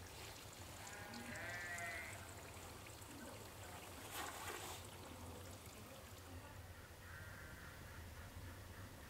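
Faint bleating of livestock in a rural setting: a quavering call about a second in and a weaker, pulsing one near the end. A short burst of noise comes about four seconds in, over a steady low hum.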